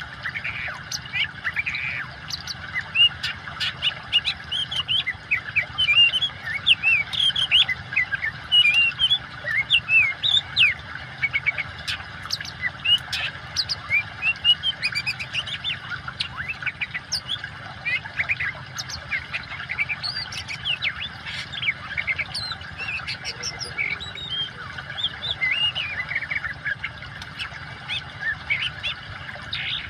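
Oriental magpie-robin singing continuously, a rapid, varied stream of whistles and chirps, over a steady rush of running water.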